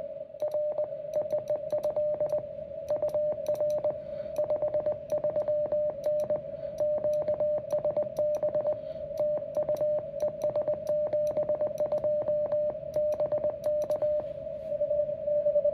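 Morse code being sent on a paddle key into a QRP Labs QMX+ transceiver: the sidetone beeps in quick dits and dahs, in groups, with the paddle's contacts clicking at each element. A steady tone at about the same pitch runs underneath, and the keying stops about 14 seconds in.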